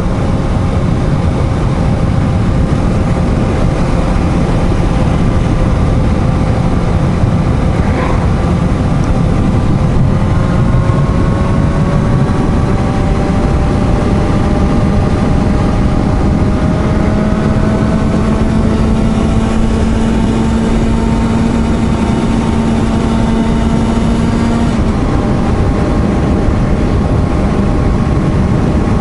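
Suzuki GSR750's inline-four heard from the rider's position while riding, under heavy wind and road rush. The engine note climbs slowly under steady acceleration from about ten seconds in, then drops abruptly about 25 seconds in.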